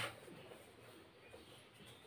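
Faint rubbing of a hand wiping marker writing off a whiteboard, with a short louder scrape right at the start.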